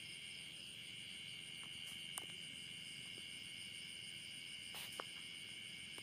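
Steady night chorus of crickets trilling, with two short sharp clicks, about two seconds in and again about five seconds in.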